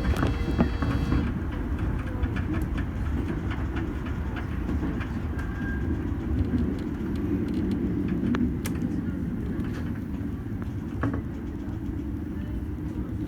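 Toei Shinjuku Line subway train running on the rails: a steady low rumble with scattered clicks from the wheels. A thin high whine stops about a second in.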